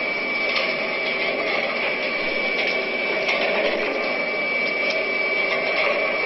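Rendering plant's carcass grinder running: a steady mechanical din with a constant high whine and faint scattered ticks.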